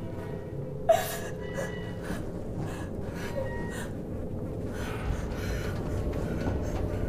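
A woman gasps sharply about a second in, followed by faint whimpering breaths, over a low steady drone.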